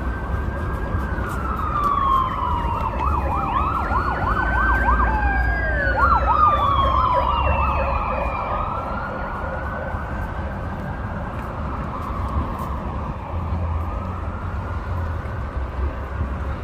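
An emergency vehicle's siren on the street: a rising and falling wail that switches to a rapid yelp twice in the middle, then drops sharply in pitch and carries on as a fainter wail. A low traffic rumble runs underneath.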